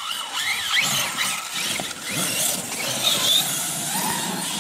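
Electric RC car's 2200kv brushless motor on a Castle Mamba Monster controller and 4S LiPo, whining with its pitch sweeping up and down as the throttle is worked during a fast run.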